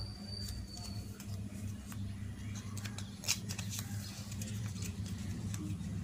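Paper being handled: a small stack of lined notebook pages rustling and crinkling as it is folded and pressed against card, with one sharper paper click about three seconds in. A steady low hum runs underneath.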